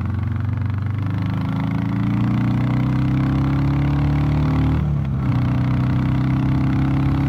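Royal Enfield Classic 350's 349 cc single-cylinder engine pulling on the road, fitted with a DNA Stage 2 performance air filter that gives it a bassier tone. Its pitch climbs slowly as it accelerates, dips briefly about five seconds in, then picks up again.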